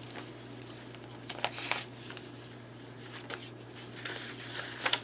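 Paper rustling and sliding as patterned paper tags and cards are handled and drawn out of a pocket in a handmade junk journal. Short rustles come about a second and a half in, again around three seconds and near the end, over a steady low hum.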